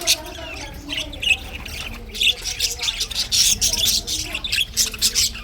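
Pet budgies chirping and chattering: a steady run of quick, sharp, high chirps and squawks.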